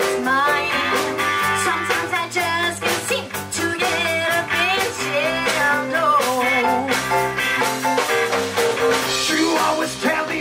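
Live band playing: a woman sings into a microphone over electric guitar, bass guitar, drums and keyboard.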